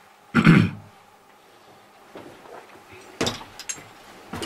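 Scuffing and knocking noises: one brief loud scuff about half a second in, then a sharp click a little after three seconds, followed by a few lighter ticks and another knock near the end.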